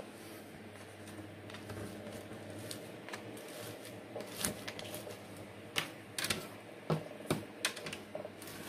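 Light, irregular clicks and crackles of bark chips, sphagnum moss and a thin clear plastic pot being handled as an orchid is potted, with the clicks coming more often and sharper in the second half.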